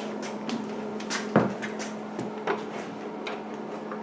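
A few scattered light knocks and clicks of tools and hardware being handled, the sharpest about a second and a half in, over a steady low hum.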